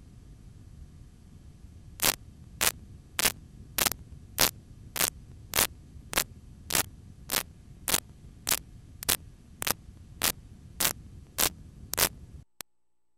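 VHS tape playback static past the end of the recording. A low hum and hiss run at first. From about two seconds in, a loud burst of static repeats regularly about every 0.6 seconds, some eighteen times, then cuts off abruptly near the end.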